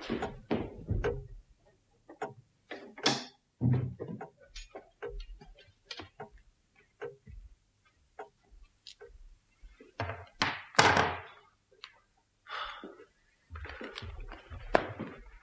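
Irregular knocks and thuds at a door, with a longer, louder noise about ten and a half seconds in.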